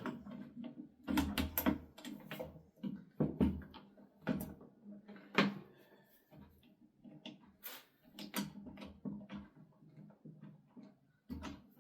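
Irregular clunks, knocks and scrapes of an angle grinder being handled and fitted into a metal chop-saw rig, with a few louder knocks among softer rattles.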